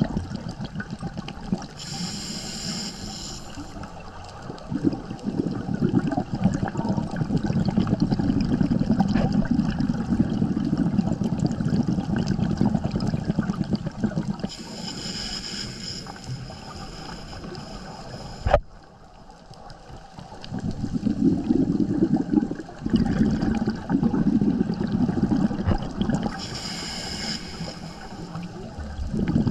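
Scuba diver breathing through a regulator underwater: a gurgling rumble of exhaled bubbles most of the time, broken by three hissing inhalations, the middle one the longest. A single sharp click comes right after the long inhalation.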